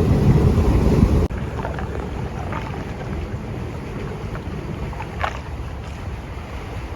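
Wind buffeting the microphone with a loud low rumble that cuts off abruptly about a second in. It leaves a quieter outdoor ambience of steady noise, with a few faint short high sounds.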